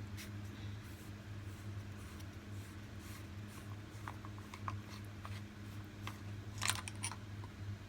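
Steady low hum with scattered light clicks and taps, and a short cluster of louder ticks about two-thirds of the way through.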